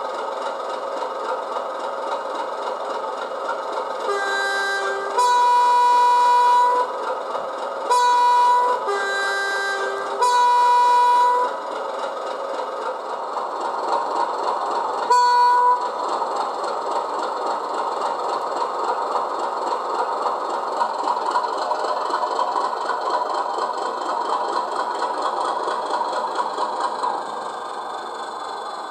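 DCC sound file of a BR Class 30 diesel locomotive: its Mirrlees engine runs steadily while the two-tone horn sounds several times, low then high, then high–low–high, followed by a single short high toot. Afterwards the engine grows louder, easing off near the end.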